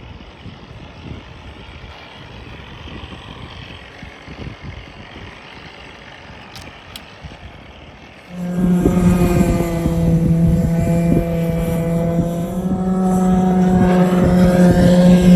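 Wind and water noise, then about halfway through the loud, steady drone of a small RC model boat engine running at a high, even speed, with a slight rise in pitch near the end.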